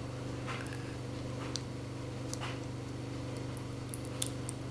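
Faint, scattered clicks and scrapes of the plastic and die-cast parts of a Soul of Chogokin Getter Dragon figure as a shoulder pad is worked onto its torso, over a steady low hum. The pad gives no clear click of seating into place.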